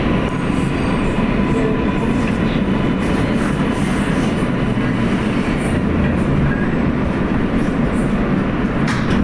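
Interior running noise of an R143 subway car on the L line as the train slows into a station: a loud, steady low rumble of wheels and car, with a faint whine in the first few seconds.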